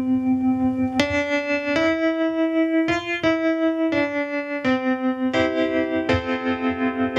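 Yamaha CP-80 electric grand piano played through its built-in tremolo, set to fast with full depth: a slow line of sustained single notes, then fuller chords near the end, the volume pulsing quickly throughout.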